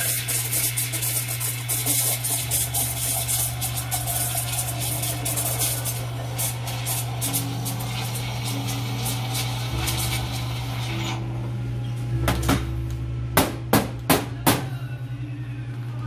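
Espresso machine steam wand hissing and crackling as it froths milk in a stainless steel pitcher, shutting off about eleven seconds in. A handful of sharp knocks follow over the next few seconds.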